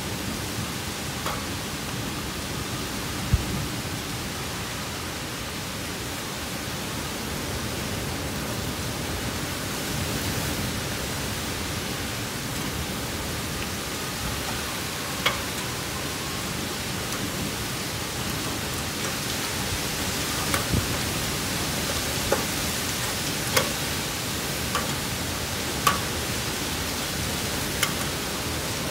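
Heavy rain pouring down in a steady hiss, with sharp single ticks of hailstones striking, scattered at first and more frequent in the second half.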